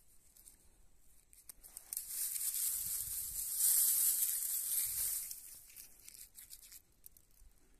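Dry, brittle mustard stalks and seed pods rustling and crackling as a hand pushes through and rubs them, starting about two seconds in, loudest in the middle and dying away near the end. The plants have dried out with empty pods, the crop ruined by too much rain.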